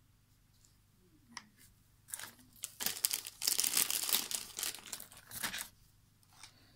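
Dense crinkling and tearing of material being handled, starting about two seconds in and going on for about three and a half seconds, loudest in the middle; a single sharp click comes just before it.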